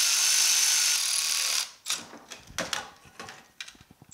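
Milwaukee cordless ratchet running with a steady whine for about a second and a half, driving a bearing retainer bolt down snug on a Muncie four-speed's aluminium case. It is followed by several light clicks and knocks.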